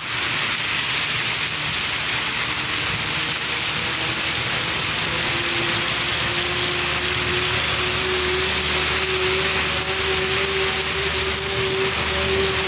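Heavy rain pouring steadily onto a street. About five seconds in, a steady motor hum comes in and grows louder.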